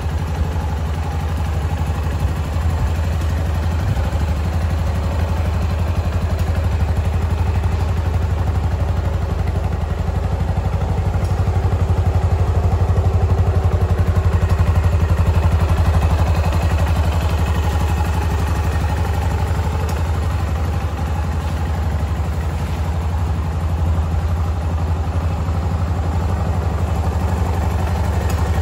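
Yamaha SR400's single-cylinder air-cooled four-stroke engine idling steadily on its stock exhaust, with an even beat, getting a little louder around the middle.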